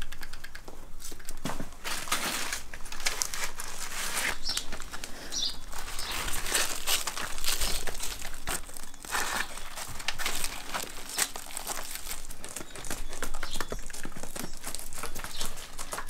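Dried sunflower heads being rubbed and picked apart by hand to free the seeds: a continuous dry rustling and crackling, thick with small clicks.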